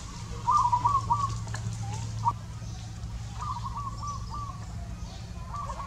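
A bird calling: a short run of four or five quick notes, repeated three times about every two and a half seconds.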